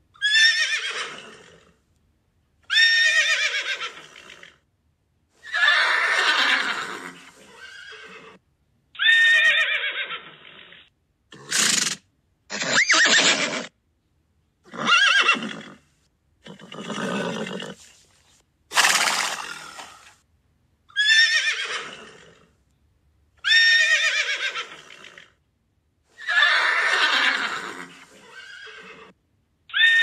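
Horses neighing: a string of about a dozen separate whinnies, each a second or two long and falling in pitch, with short silent gaps between them.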